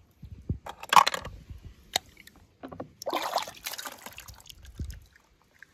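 Water sloshing and splashing in two short bursts, about a second in and again around three seconds in, as wet die-cast toy cars are handled in and out of water, with a sharp click in between.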